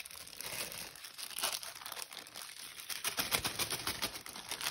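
Thin clear plastic bag crinkling and rustling as it is picked up and handled, a steady run of small crackles that gets busier after about three seconds.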